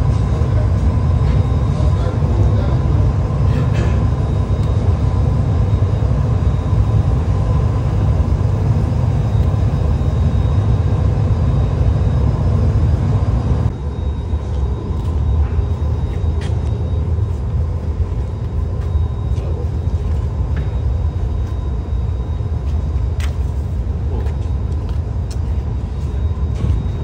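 Steady low roar of a glassblowing hot shop's gas-fired glory holes and furnaces, with a thin steady hum above it. The roar drops a little about halfway through, and a few light clicks come later.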